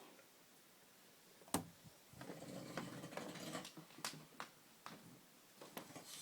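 A man snoring in his sleep: two long, low snores about three and a half seconds apart, each lasting over a second. A sharp click comes about a second and a half in, louder than the snores.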